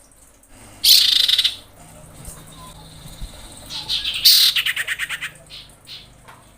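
Female common iora calling: a harsh, rapid chattering rattle about a second in, and a longer one past the middle, with a thin steady whistle between them. It is the call of a female in breeding condition calling for a male.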